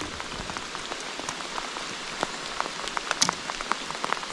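Steady rain falling, an even hiss with many individual drops ticking sharply here and there.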